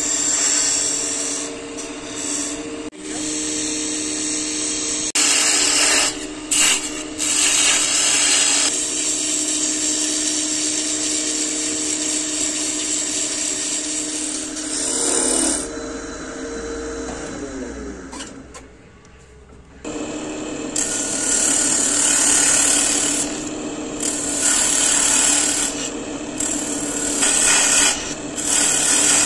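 Power tool cutting wood: a motor runs steadily under rough cutting noise. About fifteen seconds in the motor winds down and goes quiet, and about twenty seconds in it starts again.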